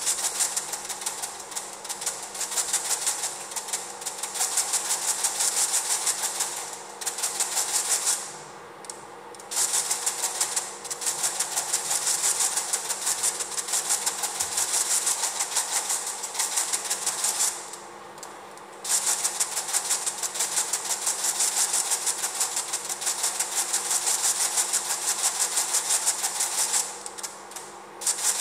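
Electromagnetic flip-dot display discs flipping, a dense clatter of rapid clicks sequenced into a pulsing rhythmic pattern. It breaks off briefly three times: about eight seconds in, about seventeen seconds in and near the end.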